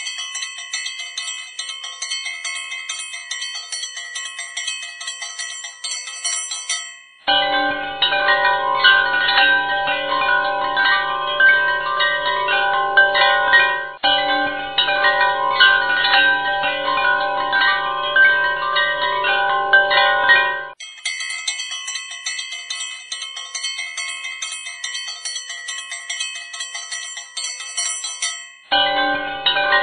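Background music: a chime-like passage of high, steady tones alternates with a fuller, lower instrumental passage, the two switching abruptly back and forth.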